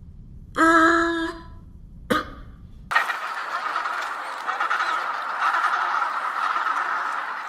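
A short pitched animal call, then a brief second one. From about three seconds in comes the dense, continuous chatter of a flock of poultry calling together.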